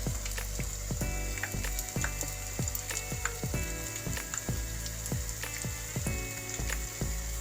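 Batter-coated green chillies (mirchi bajji) deep-frying in hot oil, a steady dense sizzle, with background music playing under it.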